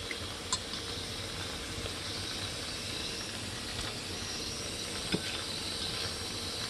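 A fork lifting pickled jalapeño slices out of a glass jar into a slow cooker, with two light clicks, once about half a second in and once about five seconds in, over a steady low hiss.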